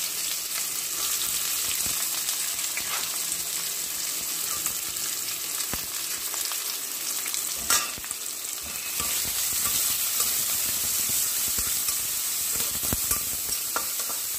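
Chopped onions sizzling in hot oil in a stainless steel pan, with a flat metal spatula scraping and clinking against the pan as they are stirred. One sharper clink a little past halfway.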